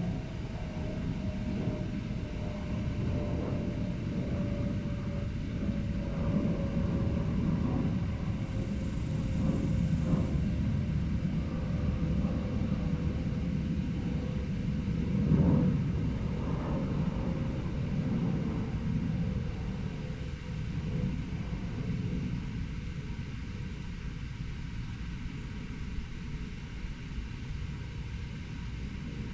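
Steady low rumble of urban traffic, with a faint tone slowly falling in pitch throughout and a louder swell about halfway through.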